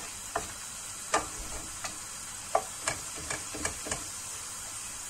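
Ground beef and chopped green peppers sizzling in oil in a frying pan while being stirred, with a steady hiss and irregular sharp knocks and scrapes of a wooden spatula against the pan.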